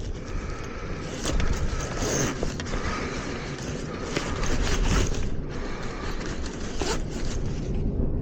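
A series of irregular, zipper-like scraping strokes over a low rumble.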